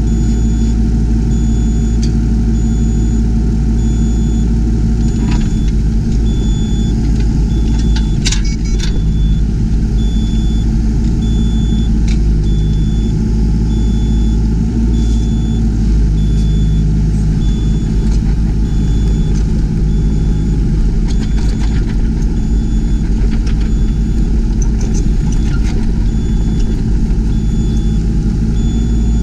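Yanmar ViO20 mini excavator's three-cylinder diesel engine running steadily under work. Through it a high electronic beep repeats about once a second, and there are occasional knocks and clanks, the loudest about eight seconds in.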